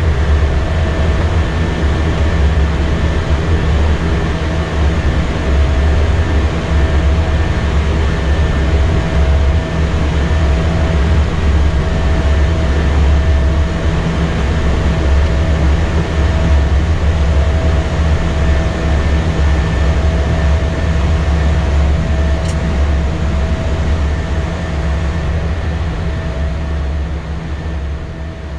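Airbus A320 flight-deck noise during takeoff: a loud, steady deep rumble of engines and airflow with a couple of faint steady whining tones over it, fading out near the end.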